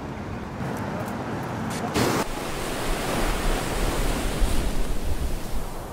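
Steady rushing noise of surf and wind at a beach, with a brief louder rush about two seconds in and a deep rumble through the second half.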